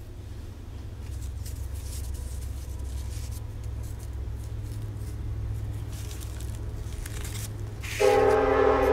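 A passing train rumbling low and steady, then sounding its horn about eight seconds in: one loud, held chord of several tones.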